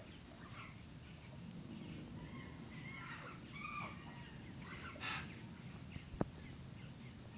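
Short, high-pitched animal calls, a few scattered across the stretch, over low background noise, with a single light tap about six seconds in.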